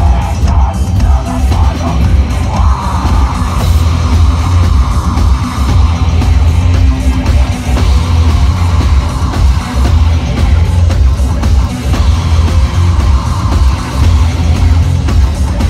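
Live heavy metal band playing loud, with shouted vocals over heavy drums and bass.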